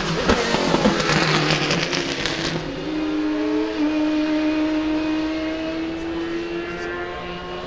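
McLaren Solus GT's naturally aspirated V10: a burst of sharp crackling for the first couple of seconds, then a steady engine note that rises slowly in pitch and fades a little toward the end.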